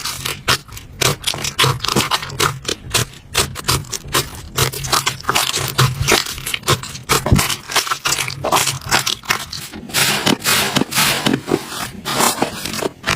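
Slime being squeezed and worked by hand, giving a dense, irregular run of sticky crackles and clicks.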